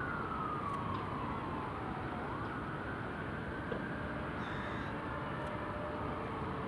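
Fire-service emergency sirens wailing, the pitch sweeping slowly down over about two seconds and then jumping back up, over steady city traffic noise.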